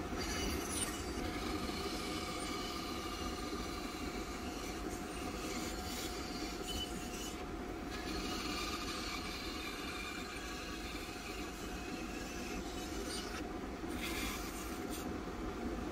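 Harvey C14 bandsaw with a 3/16-inch blade running and cutting through a small wooden blank. The higher cutting hiss lets up briefly about halfway and again near the end, over the saw's steady running hum.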